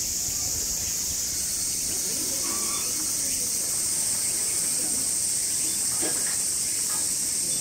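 Cicadas in chorus: a steady, high-pitched drone that grows a little louder about a second and a half in.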